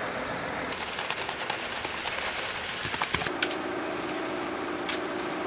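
A Mercedes-Benz concrete mixer truck is running. Within the first second it gives way to wet concrete pouring down the chute into a foundation form, a dense steady hiss with scattered scrapes and knocks from a tool working the concrete. A steady low hum joins about three seconds in.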